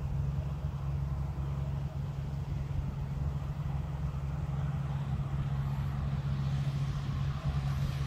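A steady low engine hum with a rough rumble beneath it.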